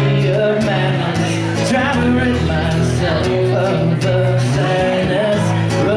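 A man singing while strumming an acoustic guitar, a live solo song.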